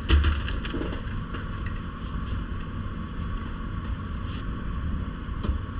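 Handling noise of a strap wrench being fitted to an air shock's canister in a vise: a low thump right at the start, then scattered light clicks and knocks over a steady background hiss.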